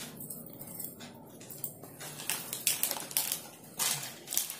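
Irregular light clicking and rustling: a metal-and-bead necklace being handled and worked free where it has caught in the hair.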